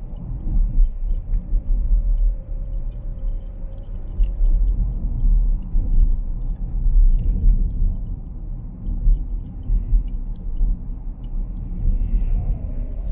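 Low, steady rumble of road and engine noise from a car driving along a street, heard from inside the cabin.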